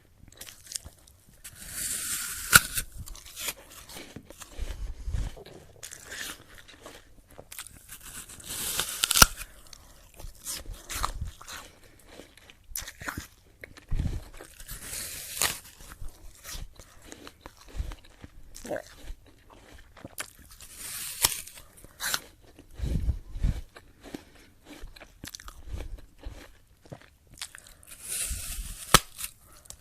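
A person biting into a crunchy apple and chewing it: five loud, crisp bites about six seconds apart, with wet crunching chewing between them.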